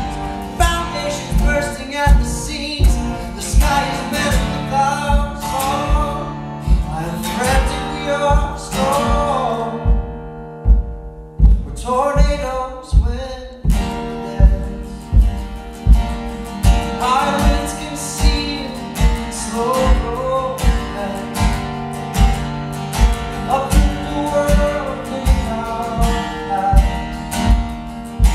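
Live acoustic guitar playing with a steady low beat about twice a second, under wordless male singing. The upper parts drop out briefly around ten seconds in, then return.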